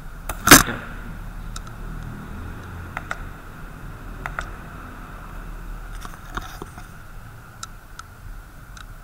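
A sharp knock about half a second in, the loudest sound, followed by scattered light clicks of a computer mouse and keyboard over a faint steady hum.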